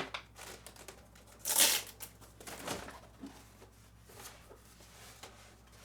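A styrofoam drone case being unlatched and opened: a sharp click at the start, a loud scraping rustle of foam about a second and a half in, then lighter clicks and rustles of handling.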